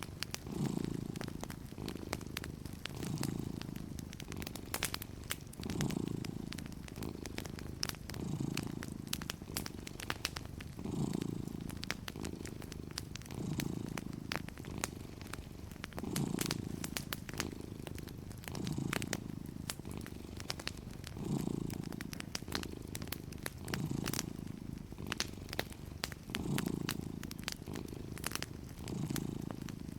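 A cat purring steadily, the purr swelling with each breath about every two and a half seconds, with the scattered light crackle of a wood fire.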